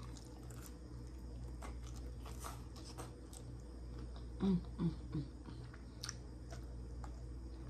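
Close-up chewing and biting of fried chicken, with many small crisp clicks and mouth sounds. About four and a half seconds in come three short low hums, the loudest sounds.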